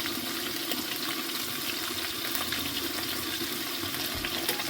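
Meat sizzling steadily in a frying pan, with a few faint clicks.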